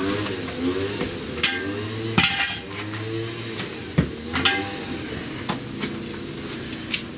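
Sharp metal clanks and knocks, about half a dozen spread over several seconds, as steel jack stands are picked up and handled.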